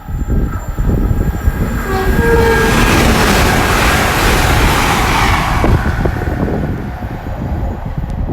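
Great Western Railway intercity train sounding a short two-note horn tone about two seconds in, then passing through at speed. Its rush of wheel and air noise builds to a peak in the middle and eases off near the end.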